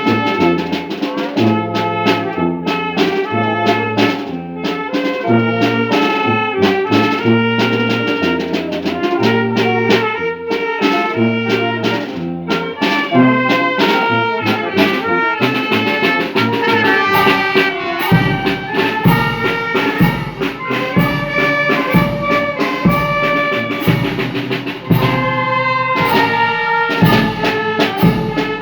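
Brass band music: brass instruments play a melody over a stepping bass line. About two-thirds of the way through, a steady drum beat comes in.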